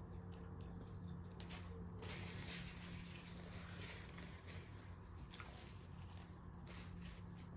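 Quiet room tone: a steady low hum with a few faint, soft clicks.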